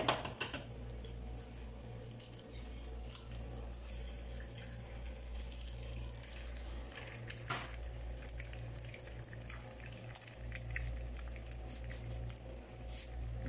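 Eggs frying in hot oil in a small pan: a steady faint sizzle with scattered pops and spits, over a steady low hum.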